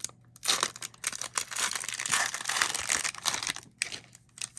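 Cellophane trading-card pack wrapper crinkling and tearing as it is handled and opened. The dense crackle starts about half a second in and pauses briefly near the end.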